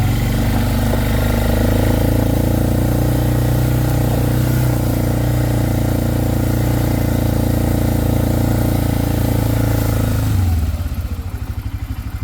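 Four-wheeler (ATV) engine running steadily while riding, then dropping back to a low, pulsing idle about ten seconds in.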